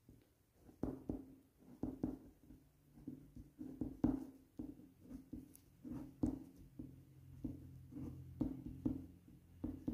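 A pen writing on a sheet of paper: short, irregular scratching strokes, about two a second.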